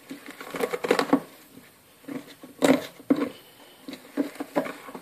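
A metal spoon stirring thick nougat mixture (stiff egg whites beaten with sugar syrup, with chickpeas folded in) in a plastic bowl: irregular squelching and scraping, with small clicks against the bowl.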